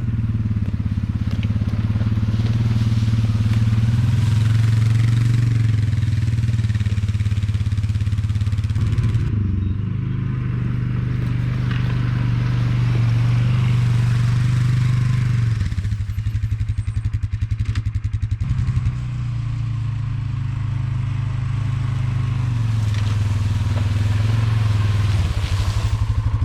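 ATV engine idling steadily. Its note shifts a few times, and for a few seconds midway it settles into a slower, pulsing idle.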